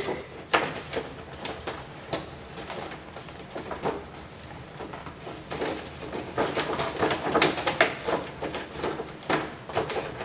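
Cardboard toy box with a clear plastic window being handled and pried at: irregular crinkling, rustling and scraping clicks, thickest in a flurry about six to eight seconds in.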